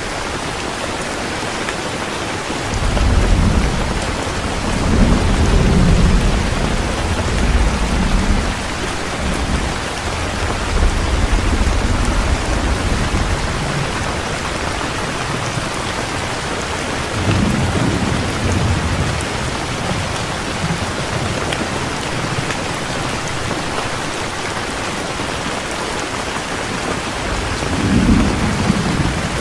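Heavy rain falling steadily, with rolls of low thunder rumbling from about three to nine seconds in, again around seventeen seconds, and once more near the end.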